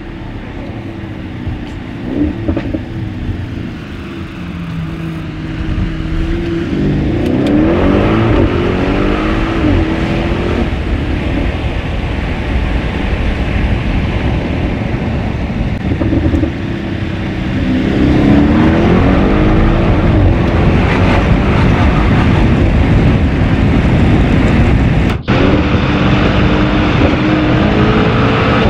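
Audi RS6 Performance's twin-turbo V8, tuned to 700 hp and fitted with an Akrapovic exhaust, accelerating hard through the gears. The engine note climbs and drops back at each upshift, getting louder about seven seconds in and again about eighteen seconds in.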